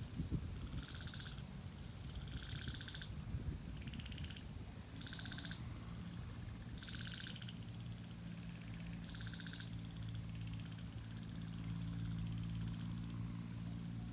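Frogs calling: short trilled calls repeating every second or two, growing fainter near the end. A low steady hum comes in about halfway.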